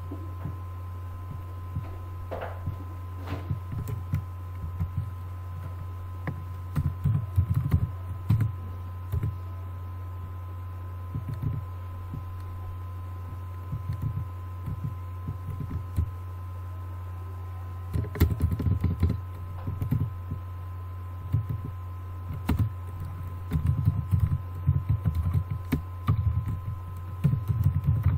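Computer keyboard keys being typed in short bursts of clicks, over a steady low electrical hum with two faint steady high tones.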